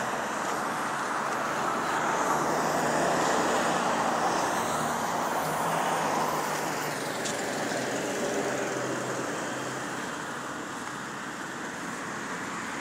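Road traffic noise: the steady rush of cars passing on a wide road. It swells a few seconds in and eases off toward the end.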